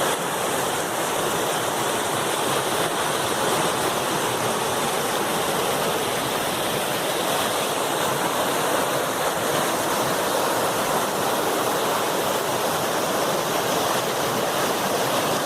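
Strong river water rushing steadily over rocks.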